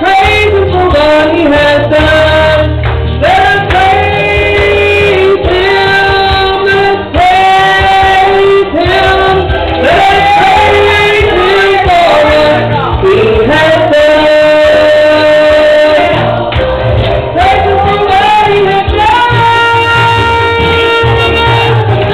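A man singing a gospel song into a microphone over instrumental accompaniment, with several long held notes.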